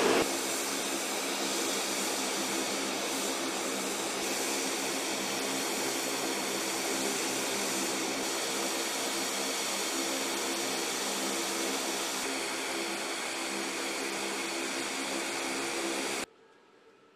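Steady drone and whine of flight-line machinery running, with several steady tones; it cuts off suddenly near the end.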